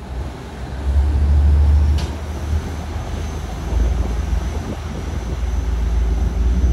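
RiverCat catamaran ferry's engines running hard as it pulls away from the wharf, propellers churning the water: a deep drone that swells about a second in and again over the last few seconds, with a faint steady high whine over it.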